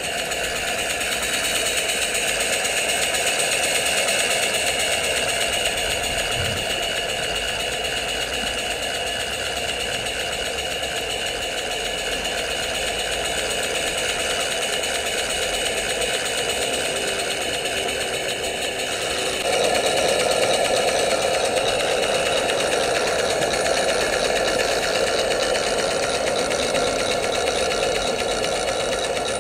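Model Dolbeer steam donkey's small steam engine running steadily as it winches a log in on its line. It gets louder and fuller about two-thirds of the way through.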